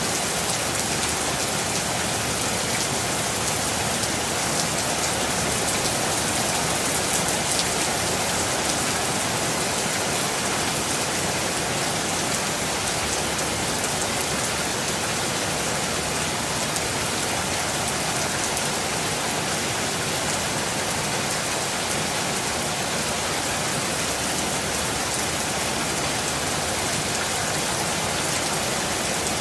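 Steady rain falling, an even hiss with fine drop patter throughout.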